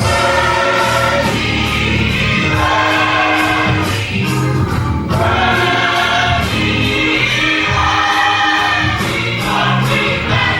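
Gospel church choir singing in full harmony with instrumental backing and a steady beat.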